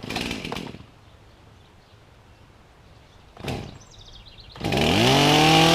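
A chainsaw being started: two short bursts, most likely pulls on the starter cord, then the engine catches about four and a half seconds in and its pitch rises to a steady fast run.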